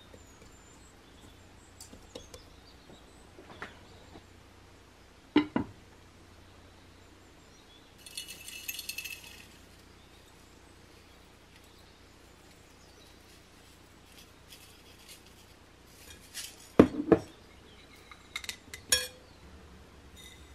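Kitchen handling sounds: a few scattered knocks and clinks of metal and ceramic dishes, the loudest about five seconds in and a double knock about 17 seconds in, with a short dry rattling patter of breadcrumbs pouring about 8 seconds in.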